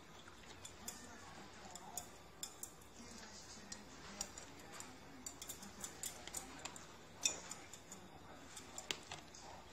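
A raccoon's claws tapping and scraping against a stainless steel bowl as it rubs its paws around in the water: a faint, irregular run of small clicks, with a sharper tap about seven seconds in and another near nine.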